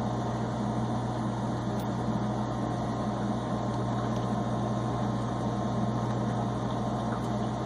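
A steady, even machine hum with a thin constant tone above it, and a few faint light clicks.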